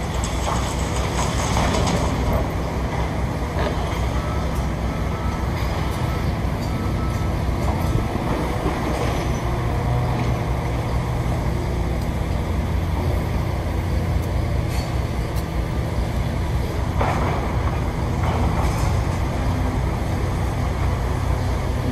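Heavy diesel machinery, a tracked excavator and a dump truck, running with a steady low engine rumble. A few short clanks come through near the start and again near the end.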